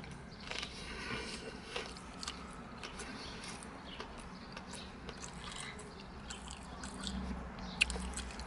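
Close-miked chewing of a mouthful of spicy fried chicken sandwich: soft, irregular mouth and crunching noises, with one sharper click near the end.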